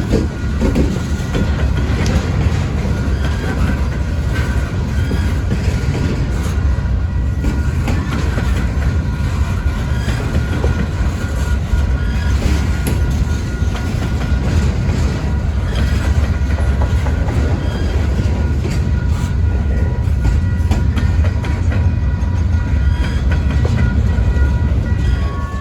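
A train's cars rolling past close by: a steady, loud rumble with wheels clacking over the rail joints and faint steady squeals from the wheels.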